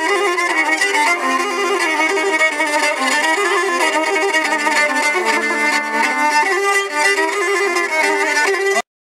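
Greek folk dance music carried by a fiddle-like bowed melody, cutting off suddenly near the end.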